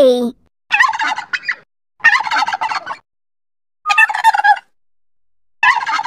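Turkey gobbling: four rapid, rattling gobbles, each about a second long and about a second apart.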